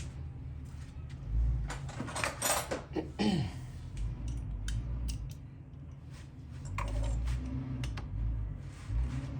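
Metal tools and engine parts clinking and clanking as they are handled during hand work on an ATV engine's top end, with a busy run of clanks about two to three seconds in and scattered clicks after.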